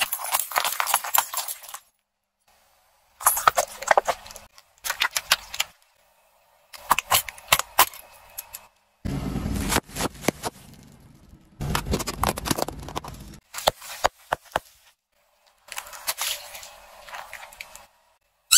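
Car tyre crushing things in a run of short clips, each one a burst of sharp cracking, crackling and crunching, with silent gaps between clips. The first burst is water-bead-filled light bulbs cracking under the tyre.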